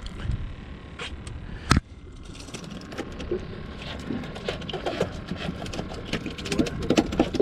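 Wire bait trap being handled with puffer fish in it: a sharp knock just under two seconds in, then fast, irregular rattling and clicking, over a low steady rumble.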